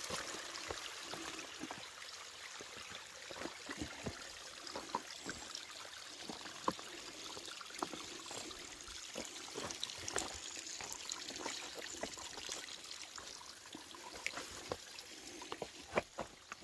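Steady trickle of running water, with scattered knocks and clicks of footsteps on rock and roots.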